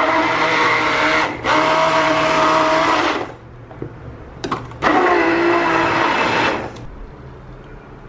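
Handheld immersion blender whizzing milk and strawberries in a plastic jug. It runs for about three seconds with a brief stutter, stops, then runs again for about two seconds before switching off.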